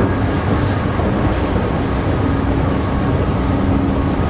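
Long escalator running, with a steady low rumble and a faint mechanical hum that grows a little clearer about halfway through.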